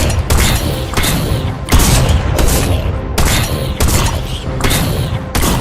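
Loud action background music with heavy, rapid drum-like hits, mixed with bursts of shot-like bangs from the mock battle.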